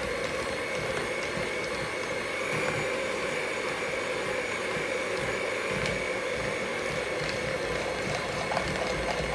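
Handheld electric mixer running steadily, its beaters churning chocolate chip cookie dough: an even whirring hum with a steady high whine on top.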